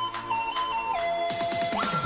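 Electronic background music: a synth melody moving in steps between notes, then a run of pitch glides that rise to a higher held note near the end.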